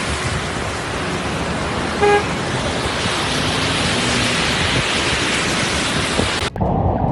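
Steady, loud rush of flash-flood water with a car horn sounding once, briefly, about two seconds in. Near the end the rush cuts off suddenly and gives way to a duller, lower one.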